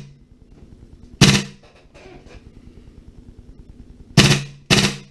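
Tokyo Marui M4A1 MWS gas blowback airsoft rifle firing short full-auto bursts on green gas, the bolt cycling with each shot. Three brief bursts: one about a second in and two close together near the end.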